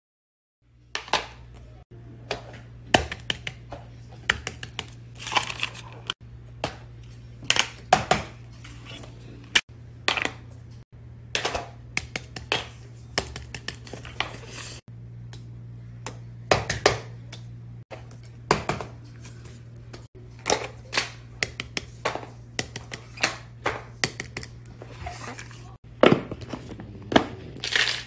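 Irregular sharp clicks, pops and crinkles from fidget toys being squeezed and handled, over a steady low electrical hum.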